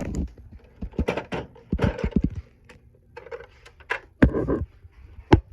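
Irregular clicks and knocks of plastic Lego pieces being handled and bumped together. The taps come in a loose cluster, with a louder knock about four seconds in and another near the end.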